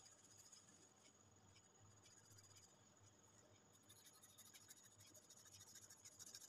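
Faint scratching of a colored pencil shading back and forth on paper in quick, rhythmic strokes, growing busier about four seconds in.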